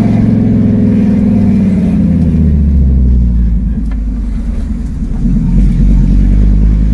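Fiat Marea HLX's five-cylinder engine running with no exhaust fitted, heard from inside the car: a loud, raw drone that falls in pitch as the car lifts off for the first few seconds, then picks up again about five seconds in.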